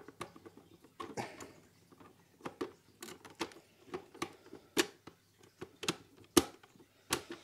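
Clear acrylic enclosure panels and door clicking and tapping against each other as they are handled and fitted together: an irregular scatter of sharp plastic clicks, a few louder knocks near the end.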